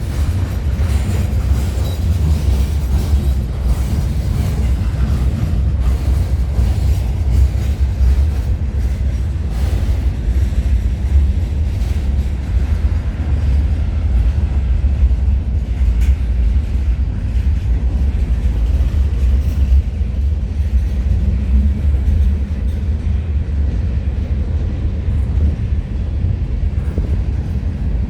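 CN freight train rolling past at close range: a steady low rumble of the cars with frequent, irregular clicks of wheels over the rail joints.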